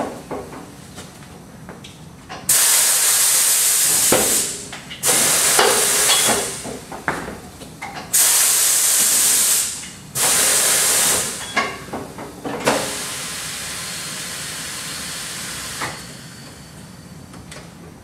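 Pneumatic bead breaker of a Corghi A9220 tyre changer, worked repeatedly to push the bead of an 18-inch tyre off the rim. Compressed air hisses loudly four times, each for a second or two, with knocks of the paddle and tyre in between. Near the end comes a quieter steady hiss lasting a few seconds.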